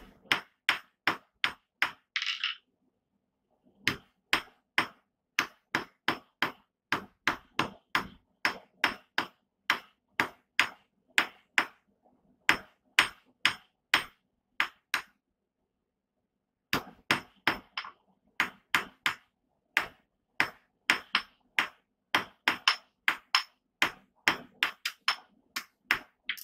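Blacksmith's hammer striking a hot steel bar on a steel anvil: runs of sharp, ringing blows about two to three a second, with two short pauses.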